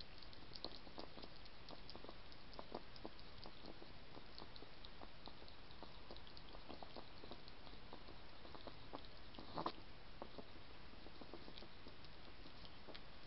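A hedgehog feeding from a metal dish, making irregular soft clicking and smacking mouth sounds, with one sharper click a little under ten seconds in. A steady hiss runs underneath.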